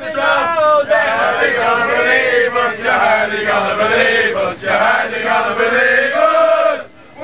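A crowd of Irish football supporters singing a football chant together, loud and continuous, with a short break near the end.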